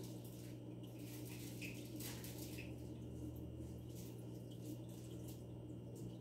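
Aquarium equipment humming steadily, with faint water trickling and dripping and scattered small ticks over it.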